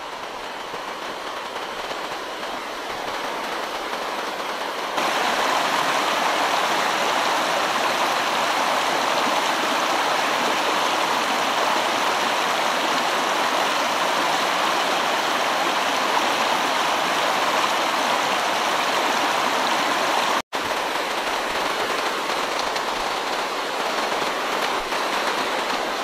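Shallow mountain stream, running low, with water rushing and splashing over rocks in riffles as a steady rush. It grows louder over the first few seconds, steps up about five seconds in, and cuts out for an instant about twenty seconds in.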